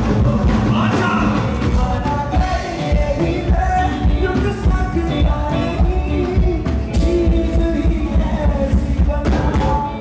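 Live band playing amplified pop music through a PA: a male singer on a handheld microphone over drum kit, keyboards and electric guitar, with a heavy, pulsing bass end.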